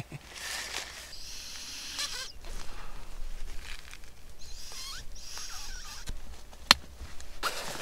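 Nylon tent fabric and clothing rustling as a person crawls into a small tent and onto an inflated sleeping mat, with a few short squeaks and one sharp knock a little before the end.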